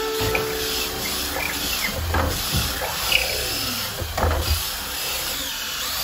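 Power drill driving a long bit through a wooden header beam, with irregular crunching and scraping of the wood as the bit bores through and low knocks about two and four seconds in.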